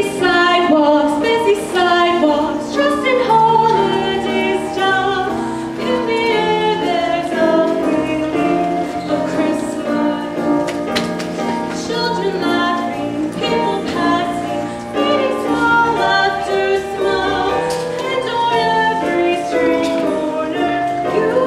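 A choir singing with women's voices prominent, several voices moving in harmony.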